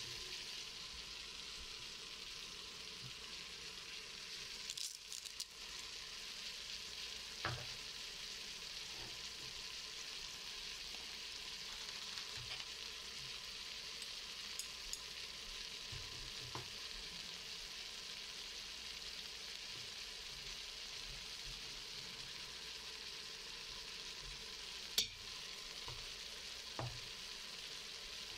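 Onions and meat sizzling steadily in a stainless Instant Pot inner pot, with a few short sharp clicks and knocks as spices are added, the loudest click a little before the end.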